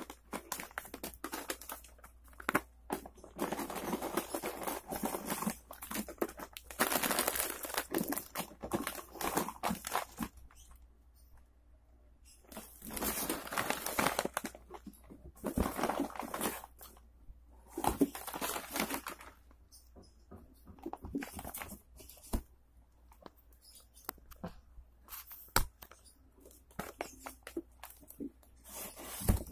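Clear plastic snack bags crinkling and rustling as they are handled, in irregular bursts with short pauses.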